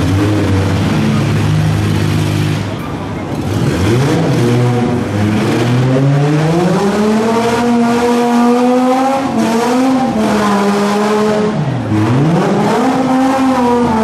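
Demolition derby cars' six-cylinder engines running hard. One engine revs up from about four seconds in and holds high, drops sharply near twelve seconds, then climbs again.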